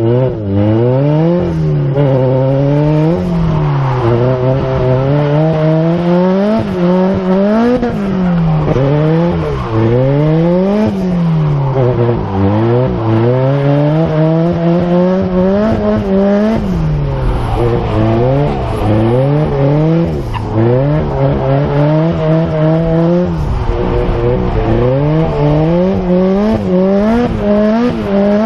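A car engine revved hard and continuously, its pitch climbing and dropping over and over about every one to two seconds.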